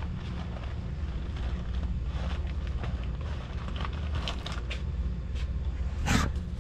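Light rustles and taps of cardboard cereal boxes being handled over a low steady hum, then a loud scrape about six seconds in as a hand takes hold of the camera.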